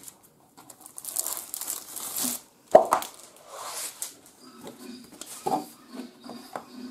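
Clear plastic wrapping being torn and crinkled as it is pulled off a scrapbook paper pad, with one sharp knock about three seconds in. After it come fainter rustles and light taps as the pad is handled.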